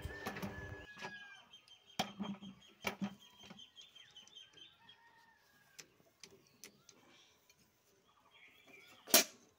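Scattered light clicks and knocks of a hydraulic pipe fitting being screwed by hand onto a tractor's power steering cylinder, with one sharp knock near the end. Chickens cluck and birds chirp faintly in the background.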